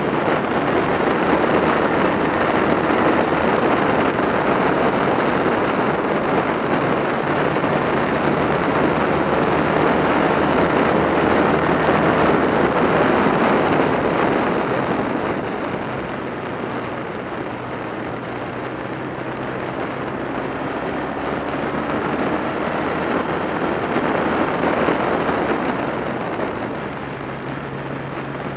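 Motorcycle riding at road speed: heavy wind rush on the microphone with the bike's engine running underneath. The wind eases about halfway, and the engine pitch steps up near the end.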